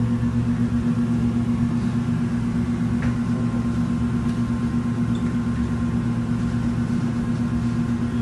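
Steady low machine drone of commercial kitchen equipment running, with a constant hum under it and a faint click about three seconds in.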